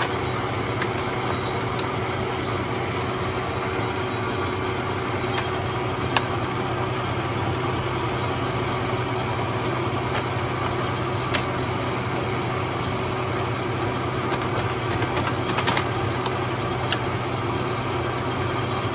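Kearney & Trecker Model 2K horizontal milling machine running with its table power feed engaged: a steady mechanical hum with a constant tone over it and a few sharp ticks.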